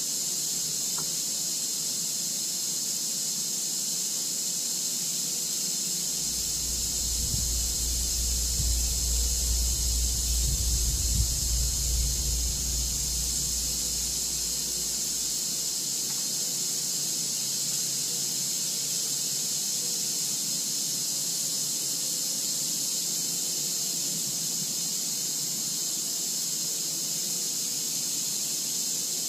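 A steady high-pitched hiss throughout, with a low rumble swelling from about six seconds in and fading by about fourteen seconds.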